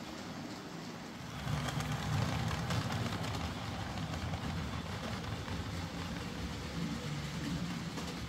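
Hornby J15 OO gauge model locomotive running on the track with its replacement motor: a steady hum with wheel-on-rail noise, getting louder about a second and a half in.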